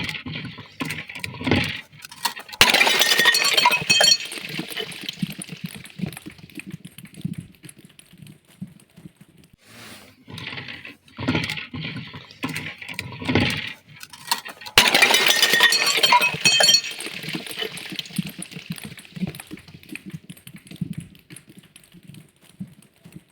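Glass bottles breaking: two loud shattering crashes, about two and a half seconds in and again near fifteen seconds, each followed by ringing, tinkling glass that fades over a second or two, with shorter cracking and crunching in between.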